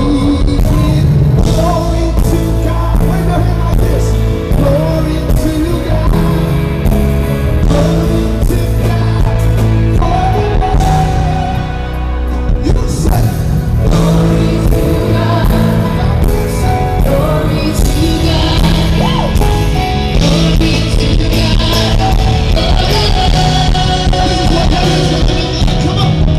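Live band music with a male lead singer and female backing singers, loud and steady, with a heavy bass.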